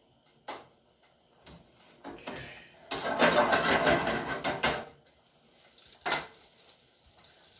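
Butter dropped into a hot oiled skillet, sizzling loudly for about two seconds a few seconds in, with a few light knocks before and after.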